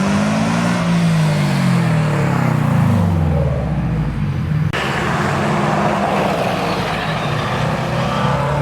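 A car's exhaust as it drives past, its engine note falling in pitch over the first few seconds. After an abrupt cut, another car's engine runs at a steady pitch.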